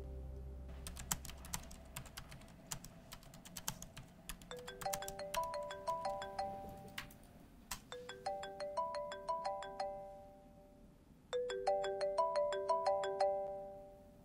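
Laptop keyboard typing in quick clicks, then a phone ringtone starts about four and a half seconds in: a short tune of chiming notes that repeats about every three and a half seconds. The typing stops partway through while the phone keeps ringing unanswered.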